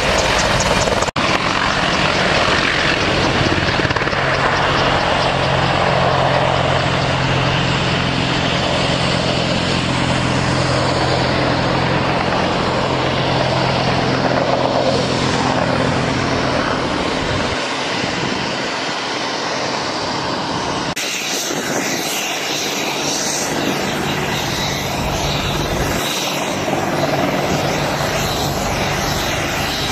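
AH-64E Apache attack helicopters' twin turboshaft engines and four-blade rotors running close by as they hover and fly low. A steady low hum fades out past the middle. The sound breaks off abruptly about a second in and changes suddenly about two-thirds through.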